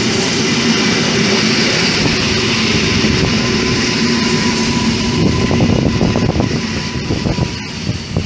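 Two coupled Koleje Mazowieckie EN57-type electric multiple units passing close by, a loud steady rumble of wheels on rail with a faint steady whine. About five seconds in, the wheels' clatter over the rail joints becomes more distinct.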